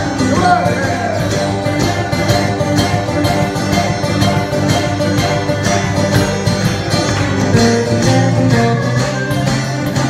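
Acoustic flat-top guitar and electric guitar playing a country blues instrumental break together live, the notes picked in a steady rhythm over sustained bass notes.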